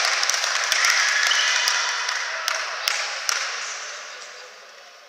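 Players and spectators cheering and clapping after a point is scored in tchoukball, a burst of noise that fades away over a few seconds, with a few separate claps about two and a half to three and a half seconds in.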